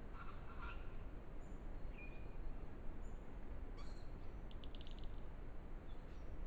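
Small birds calling in the bush over a steady low hiss. There is a short call near the start, a thin high note about two seconds in, and a fast dry trill of about half a dozen ticks around four and a half seconds in.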